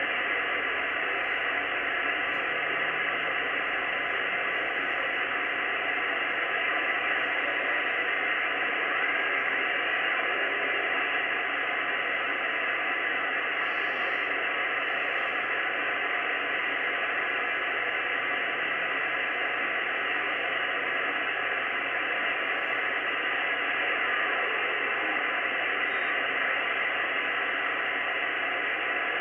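Steady static hiss from a communications receiver in single-sideband mode, tuned to an amateur satellite downlink on the 2-metre band with no distinct signal standing out from the noise.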